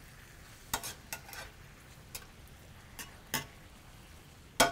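Sautéing vegetables sizzling faintly in a skillet as they are stirred, the metal utensil clicking against the pan several times, with a louder clatter of pans near the end.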